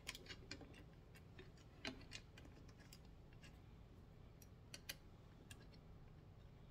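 Faint, scattered clicks and taps of small parts being handled as a drop-away arrow rest and its mounting screw are fitted onto a bow, with slightly louder taps about two seconds in and near five seconds.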